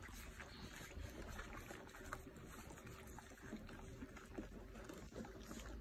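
Litter of young Goldendoodle puppies lapping and slurping soaked puppy mush from a shared dish: faint, wet smacking and licking with many small clicks.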